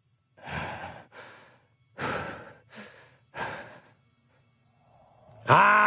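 Heavy, laboured breathing from a badly wounded man: five separate breaths over about four seconds. Near the end a loud, sustained yell breaks out suddenly.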